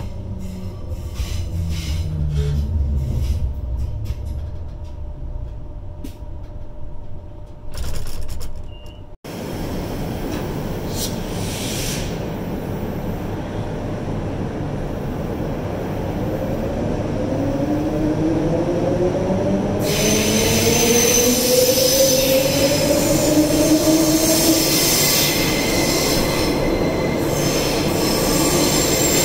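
Queensland Rail EMU electric train: first a low rumble with scattered clicks inside the car, then, after a cut, the train pulling out of the platform. Its traction motors whine upward in pitch from about halfway through, and from about two-thirds through the rumble grows louder with high wheel squeal as it gathers speed.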